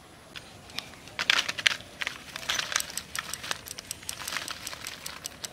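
Small parshe fish poured onto a banana leaf, landing in a dense run of wet slaps and crackling clicks that starts about a second in.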